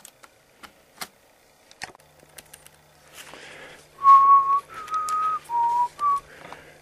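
A person whistling a short tune of four clear notes around one pitch, starting about four seconds in, after a few light handling clicks.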